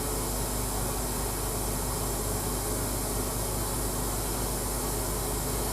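Carpet-cleaning extraction equipment running in the background: a steady hiss over a low, even hum.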